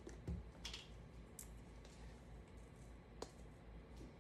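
Faint, scattered clicks and light taps of a measuring spoon and a salt canister being handled while salt is measured out, with one short soft hiss a little under a second in.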